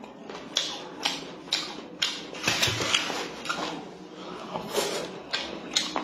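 Loud open-mouthed chewing with wet lip-smacking, about two smacks a second, easing off briefly a little past the middle before picking up again.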